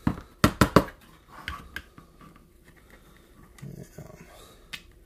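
Sharp clicks and knocks of a hollow plastic air-rifle stock being handled, a quick cluster of about four in the first second, then a few lighter taps.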